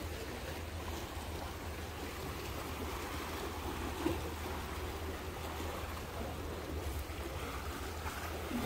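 Steady sea ambience: calm water washing gently against the breakwater's concrete tetrapods, under a low rumble of wind on the microphone, with one faint bump about halfway through.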